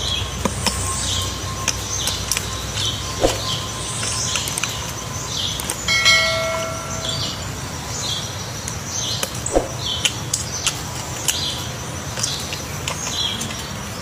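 Pileated woodpecker chiselling out a nest cavity in a tree trunk: irregular knocks of its bill on the wood with short scratchy tearing sounds as chips come away.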